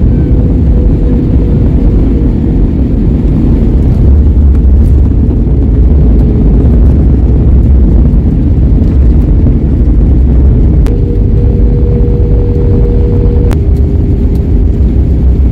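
Jet airliner cabin noise heard from a window seat as the plane moves along the ground: a loud, steady low rumble with a faint steady hum above it.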